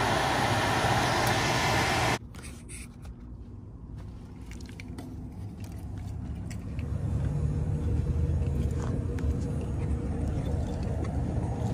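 An old air handler's blower running with a steady, loud rushing noise, working again on its new transformer, cut off abruptly about two seconds in. After that come quieter scuffs and knocks of climbing out through a wooden roof hatch, with a low rumble building toward the end.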